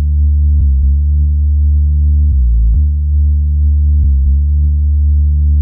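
Electronic music: a deep synthesizer drone whose sustained bass notes shift every second or two.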